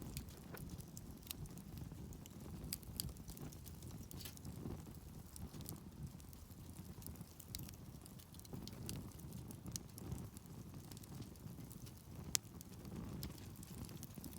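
Wood campfire crackling, with scattered small pops over a low rumble and one sharper pop about twelve seconds in.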